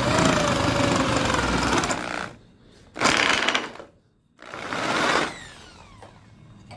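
Electric drill boring through wood with a spade bit: a long run of about two seconds, then two shorter bursts with a brief stop between them, and the motor winding down with a falling whine near the end. The hole is being finished from the second side, starting in the small hole left by the bit's centre point so the wood does not tear out.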